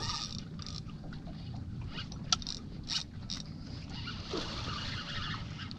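Water slapping against a small fishing boat's hull as a steady low rumble, with patches of hiss and a few sharp clicks and knocks, the loudest about two seconds in.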